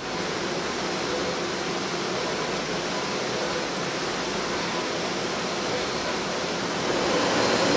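Steady, even machine noise with a faint hum from PCB drilling machines running in the drill shop, growing a little louder near the end.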